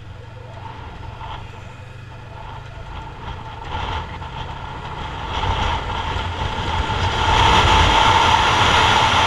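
Yamaha MT-03's 321 cc parallel-twin engine running under way, with road and wind rush that grows steadily louder over the last few seconds as the motorcycle speeds up and draws alongside a truck.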